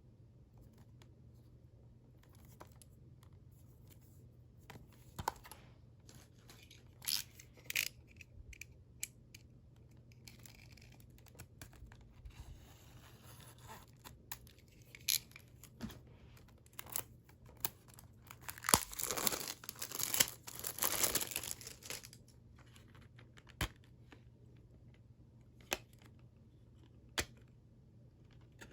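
Cellophane shrink-wrap being torn and peeled off a CD case: scattered crinkles and clicks, with a longer stretch of tearing and crinkling about two-thirds of the way through, the loudest part.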